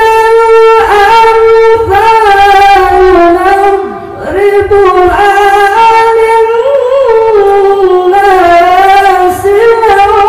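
A male qari reciting the Qur'an in the melodic tilawah style into a handheld microphone. He holds long notes with wavering ornaments, with a short break for breath about four seconds in.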